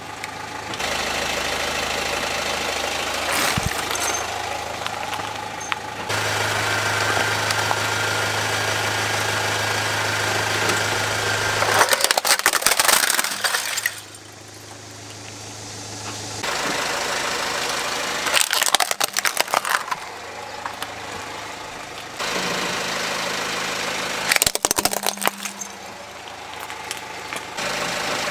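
A car engine idling, cut into several short takes, with a few loud bursts of cracking and crunching as plastic toy trucks break under the car's tyre.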